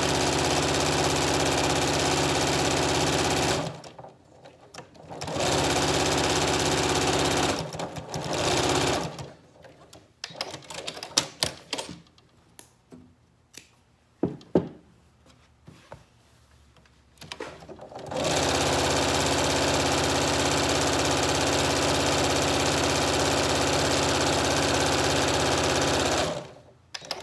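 Janome electric sewing machine stitching bias-tape trim onto a cuff, running in bursts at a steady speed. A run of a few seconds, two short runs, then a pause of several seconds with only small clicks and fabric handling, then one long run of about eight seconds that stops near the end.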